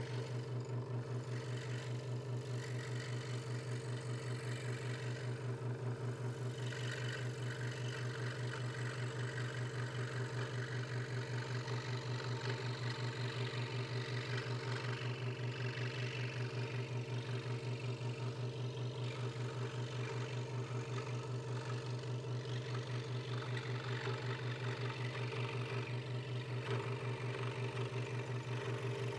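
Hegner Multicut 2S scroll saw running at a steady speed, its blade stroking up and down through a thin wooden board. A steady hum with a fast, even pulse, and a rasping cutting sound that comes and goes as the wood is fed and turned into the blade.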